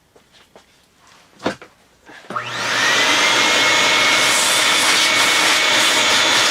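A few light knocks, then about two seconds in an electric motor starts, spins up and runs steadily: a loud rushing hiss with a high whine and a low hum.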